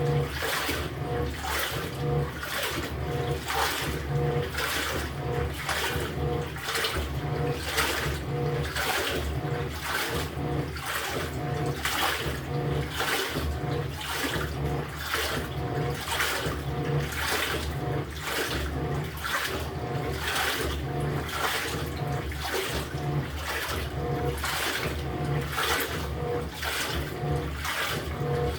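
LG top-loading washing machine's pulsator agitating the wash load, churning and sloshing the water in an even rhythm of about one and a half strokes a second, with a faint motor hum pulsing on each stroke.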